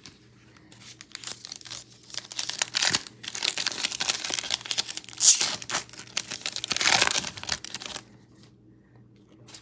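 A trading-card pack wrapper being torn open and crumpled: crackly, crinkling tearing that builds about a second in, is loudest in two spells near the middle and towards the end, and stops about two seconds before the end.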